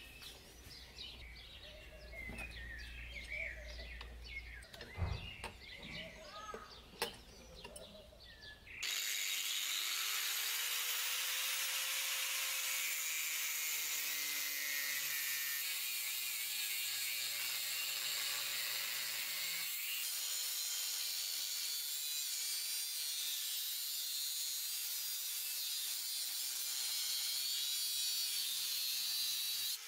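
Birds chirping with a few sharp clicks for the first several seconds. Then, about nine seconds in, an angle grinder starts with a brief rising whine and cuts steadily into the steel of a truck leaf spring, a loud, even hiss.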